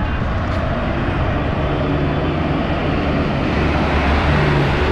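Street traffic with a light truck's engine running close by, a low drone that grows louder in the last second or so as the truck passes.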